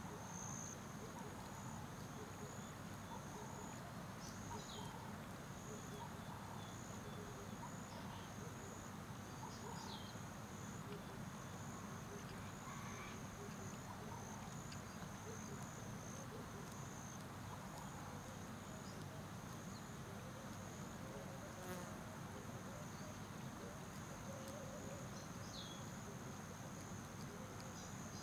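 Outdoor nature ambience: insects trilling steadily at a high pitch, with a short falling bird chirp now and then.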